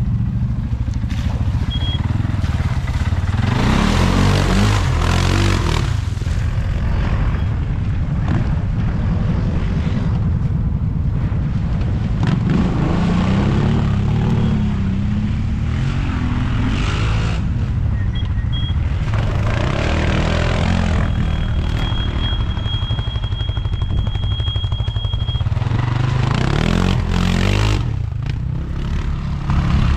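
ATV (quad bike) engine running hard on a dirt track, revving up and easing off in repeated surges every few seconds.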